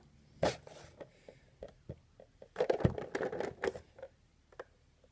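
Small plastic figures and a clear plastic jar being handled: scattered clicks and knocks, then a burst of clattering and rustling with a dull thump about three seconds in as a figure is fished out of the jar.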